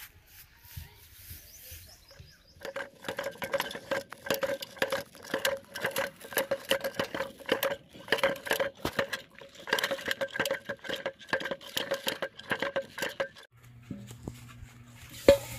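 A homemade spool fishing reel turning on its wooden stake, giving a fast, uneven run of clicks and squeaks, several a second, for about ten seconds before it stops. A steady low hum follows, with one sharp click near the end.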